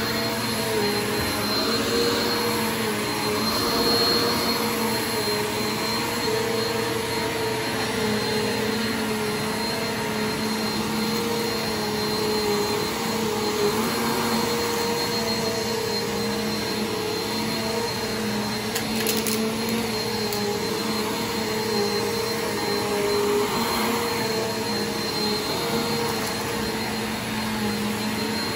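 Bissell PowerForce bagless upright vacuum cleaner running steadily, its motor holding a constant hum as it is pushed over carpet. A couple of brief clicks come about two-thirds of the way through.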